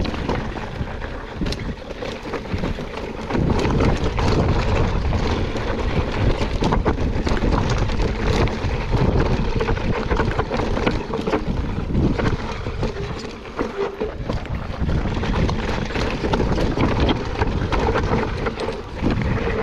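Mountain bike riding downhill over rough trail: wind buffeting the microphone over a steady rumble of tyres and a constant clatter of small knocks and rattles from the bike. It gets louder about three and a half seconds in as the ride speeds up.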